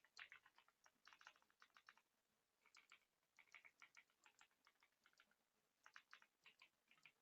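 Faint typing on a Royal Kludge RK R75 gasket-mount mechanical keyboard: quick runs of key clicks broken by short pauses.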